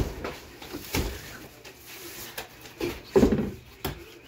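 Knife cutting and tearing through the cardboard of a large shipping box, with a sharp knock against the box at the start, another about a second in, and a louder rasping tear about three seconds in.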